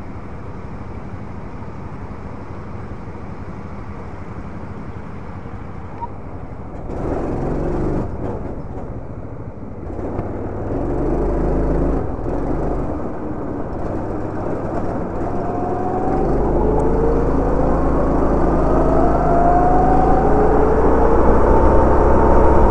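Sodi two-seater rental go-kart's engine running at idle, then revving up about seven seconds in as the kart pulls away, and accelerating with its pitch rising and falling with the throttle as it gets onto the track.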